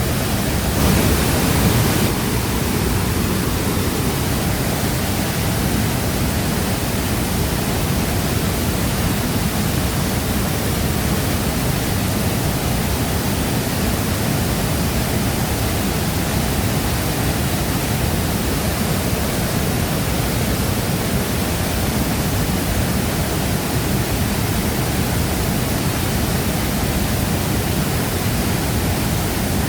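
Waterfall rushing: a steady roar of falling water, briefly a little louder about a second in.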